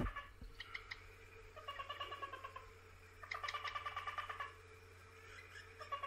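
Hottentot teal calling: bouts of rapid ticking notes, each about a second long, coming every second or two and dropping slightly in pitch. A single thump at the very start.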